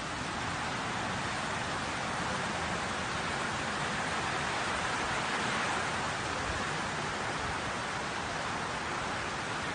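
Heavy wind-driven rain of a tropical cyclone, a dense, steady hiss with no let-up.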